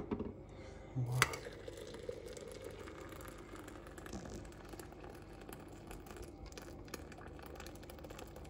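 Boiled water from an electric kettle poured into a glass teapot with a steel tea infuser, a steady pouring after a couple of brief knocks near the start.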